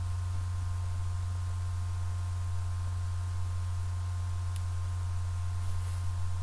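Steady low hum with faint, steady higher tones above it and no other events.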